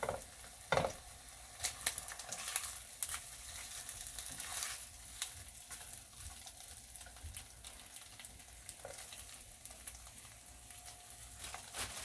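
Sliced ham and bread frying in oil in a nonstick pan: a steady sizzle with scattered crackles and pops, more of them in the first few seconds.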